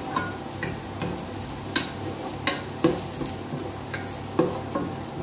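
Onion sizzling in oil in a pot while a wooden spatula stirs it, knocking and scraping against the pot in irregular strokes over a steady frying hiss.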